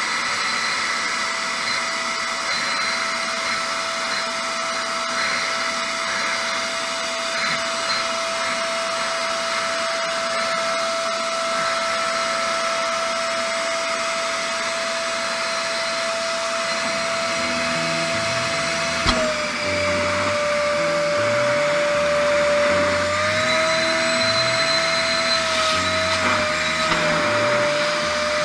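Canister vacuum cleaner running steadily, its hose used to suck the fluid out of a motorcycle's front brake master cylinder. About two-thirds through there is a click, and the motor's pitch drops slightly and then wavers.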